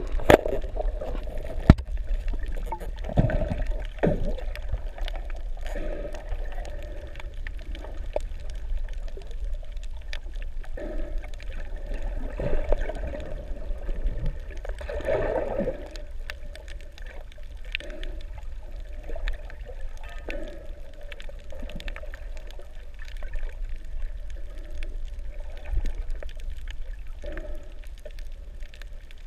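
Muffled underwater sound from a camera held below the surface: water sloshing and gurgling with a steady low rumble, soft swells, and scattered sharp clicks.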